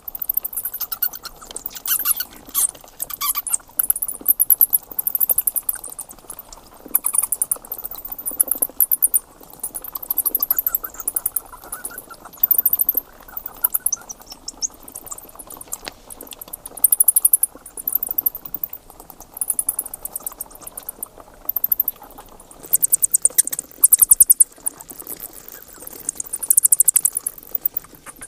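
Bats chittering: rapid trains of very high-pitched squeaks and clicks in repeated bursts of about a second, with short gaps between.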